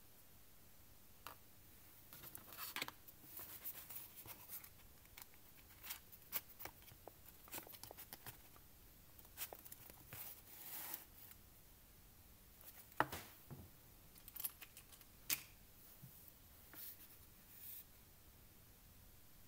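Faint, scattered clicks, taps and short scrapes of a steel washer and M6 nut being fitted and turned by hand onto a bolt, with fingers handling the board; one sharper click about two-thirds of the way through.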